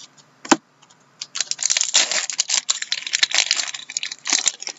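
Typing on a computer keyboard: a single click about half a second in, then a fast, irregular run of key clicks lasting about three seconds.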